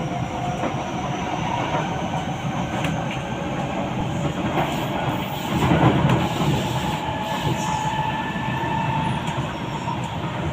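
Metro train running along its track, heard from inside the carriage: a steady rumble with faint whining tones, swelling louder about six seconds in.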